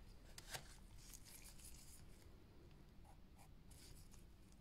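Faint scratching of a pen writing on a paper worksheet, with a light click about half a second in.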